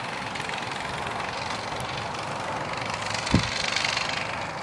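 Engine of a 178cc pressure-washer-powered go-ped running, heard from some way off, swelling louder for about a second near the end. There is one brief thump just before the swell.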